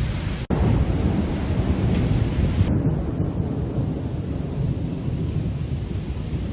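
Storm noise of gusty wind and heavy rain: a loud, steady low rumble under a rain hiss. It drops out briefly about half a second in, and the hiss turns duller just under three seconds in.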